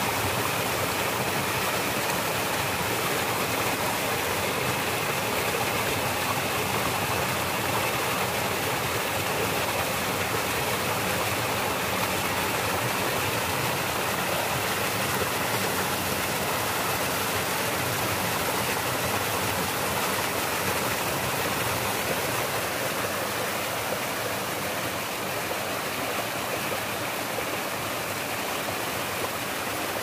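Stream water rushing steadily over a small rocky cascade below the Kailasakona falls, a continuous hiss, slightly quieter near the end.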